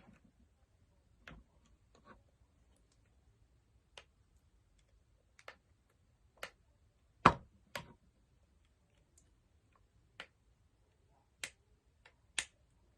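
Slime being mixed in a bowl: about ten sharp clicks and taps at irregular intervals, the loudest about seven seconds in.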